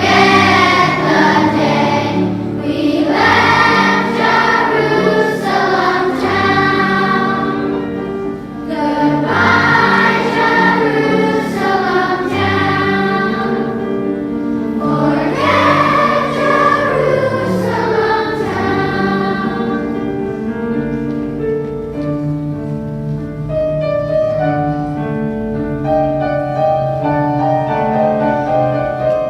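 Children's choir singing a song with piano accompaniment. The voices stop about two-thirds of the way through, and the piano plays on alone.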